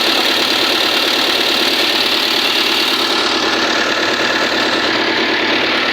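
Volvo 210D excavator's diesel engine running at a steady idle with a clattering knock, now starting after its starter was repaired.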